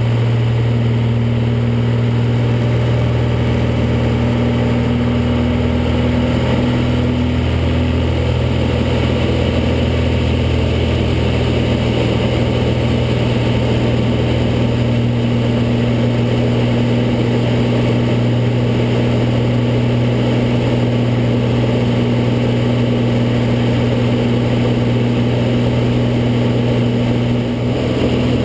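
Piston engine of a propeller-driven light aircraft running steadily in flight, heard inside the cockpit as a constant low drone.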